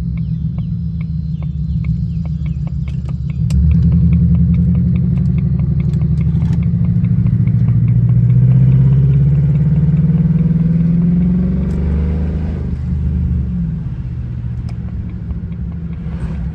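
Jaguar XJR's supercharged V8 under way, heard from inside the car. The engine runs steadily, then about three and a half seconds in it gets louder and pulls harder, its pitch rising steadily for about eight seconds. It then drops near the twelve-second mark and settles. A light regular ticking sounds throughout.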